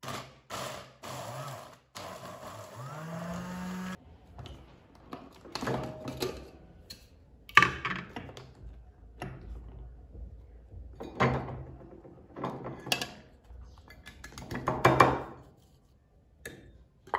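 A small electric food chopper grinding biscuits and peanuts in a few short bursts, one of them rising in pitch as the motor speeds up. This is followed by a series of knocks and plastic clatter as the chopper's bowl and lid are handled and the ground crumbs are tapped out into a dish.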